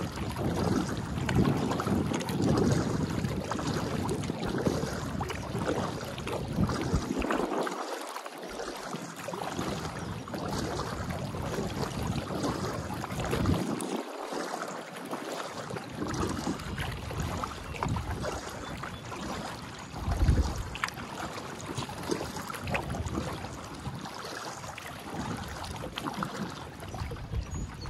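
Wind rumbling on the microphone over water splashing and lapping around a moving kayak. The low buffeting drops out briefly twice.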